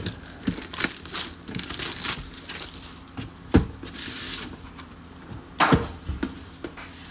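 Plastic wrapping crinkling and tearing as a sealed trading card box is opened by hand, with two sharper knocks partway through.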